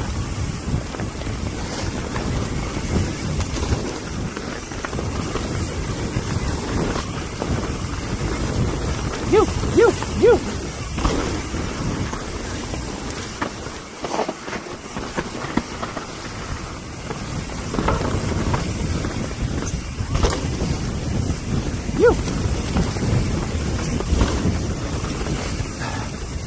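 Mountain bike descending a dirt singletrack: wind buffeting the microphone over a steady rumble and rattle of tyres and bike on dirt and roots, with a few brief pitched chirps about ten seconds in and once more a little after twenty seconds.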